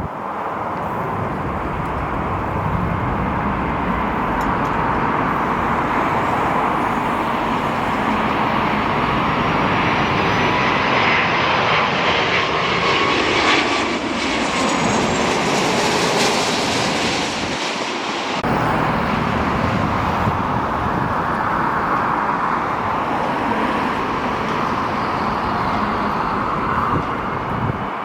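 Jet airliner passing close by, its engine roar swelling to a peak about halfway through with a faint turbine whine, then easing off. Strong wind buffets the microphone underneath.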